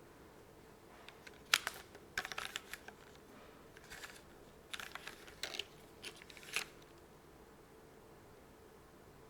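Typing on a Karina 65 mechanical keyboard with Cherry HG Black linear switches, GMK ABS keycaps, a full aluminium plate, tadpole mount and no foam. Quick irregular runs of keystrokes begin about a second in and stop a little over halfway through.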